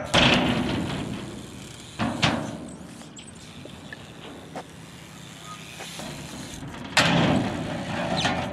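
BMX bike on skatepark concrete and rails: a sharp clack, then tyre rolling noise that fades, a couple of knocks about two seconds in, and near the end a scraping grind that lasts about a second and a half.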